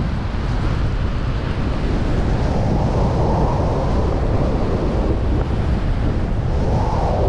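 Wind noise buffeting the microphone of a skier's camera while skiing downhill at about 26 to 29 mph: a steady, loud, low rumble of rushing air.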